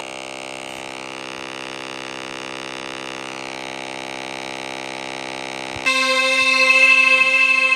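Synthetic vocoder effect from Orange Vocoder Nano: a steady drone of many evenly stacked tones. Near the end it switches abruptly to a louder, brighter held chord.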